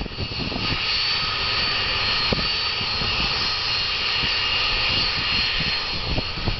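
BAe 146 jet airliner's Lycoming ALF 502 turbofans running at idle on the ground: a steady high-pitched whine over a dense rush, with an uneven low rumble underneath.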